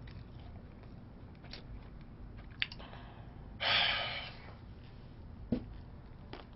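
A man's heavy sigh, one long breathy exhale about three and a half seconds in that fades out, with a few faint clicks before and after it.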